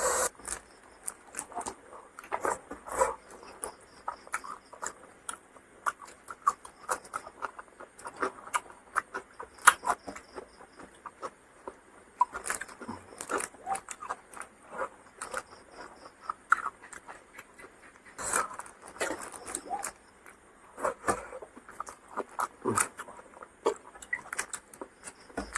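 A person chewing and smacking their lips while eating fried fish with rice: an irregular run of short mouth clicks and smacks, several a second.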